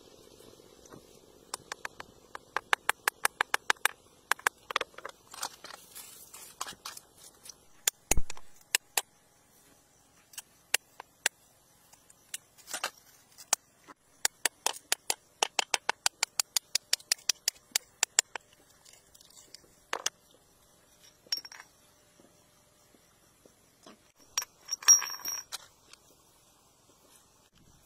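Rusty steel chisel tapping and scraping against wet rock to free a stone: runs of quick sharp clicks, about five a second, with one heavier knock about eight seconds in and a short scrape near the end.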